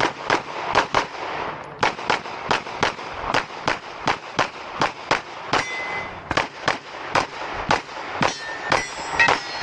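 A 9mm Glock 17 Gen 6 pistol fired in fast strings of shots during a competition stage, about three shots a second with brief pauses between strings. A steel target rings once about six seconds in.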